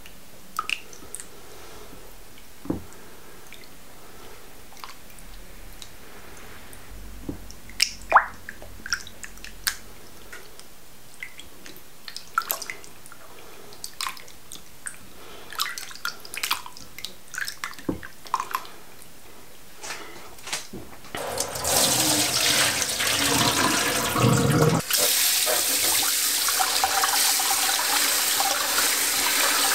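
Hands swishing and rubbing raw oysters in a bowl of water: scattered small splashes and drips. About two-thirds of the way through, a kitchen tap starts running in a steady stream onto the oysters in a metal mesh strainer in the sink, and the sound of the stream shifts a few seconds later.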